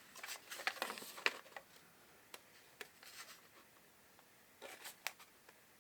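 Fingernails scratching and clicking at a plastic LED light, picking at its protective film, with light rustles of handling. The sounds come in short scattered bursts, busiest in the first second and a half and again near the end.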